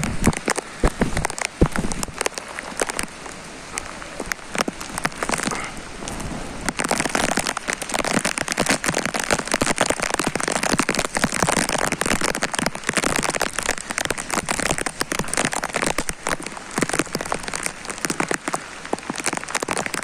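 Heavy rain pouring down, a dense patter of drops hitting surfaces, which eases a little a few seconds in and then grows heavier again about seven seconds in.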